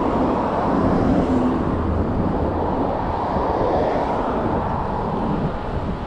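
Wind buffeting the microphone of a handlebar-mounted action camera on a moving bicycle: a steady, deep rush of noise.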